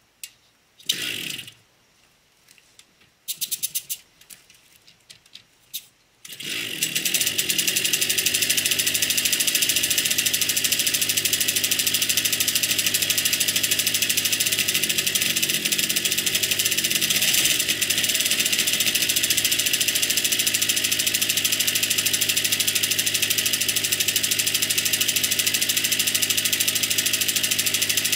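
Pedal-starting a freshly restored Jawa Stadion S22 moped's small two-stroke single-cylinder engine: it fires briefly about a second in, pops a few times a couple of seconds later, then catches a little after six seconds and idles steadily.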